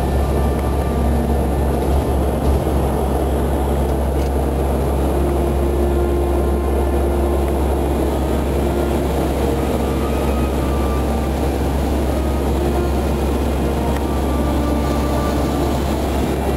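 Engines of a large military aircraft droning steadily, heard from inside the flight deck in flight.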